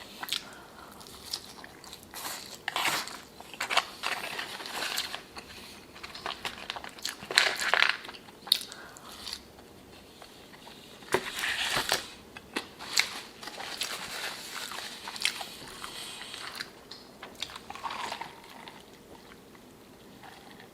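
Close-miked eating: a person biting and chewing crunchy fast food, with irregular bursts of crackling crunches and quieter chewing between them.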